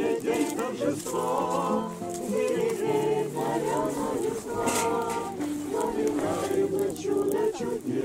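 A group of voices singing together unaccompanied, with held notes throughout.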